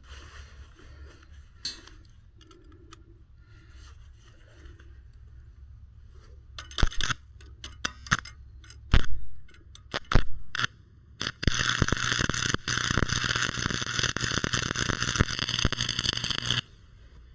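A few loud metal clanks, then a stick welder burning a 7018 electrode with a steady crackling hiss for about five seconds, the welder near full amperage, cutting off suddenly.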